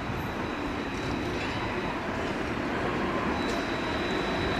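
Alstom Citadis tram approaching along street track, its running noise growing steadily louder.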